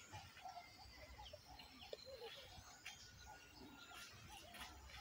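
Faint bird calls, many short chirps repeating over a low rumble.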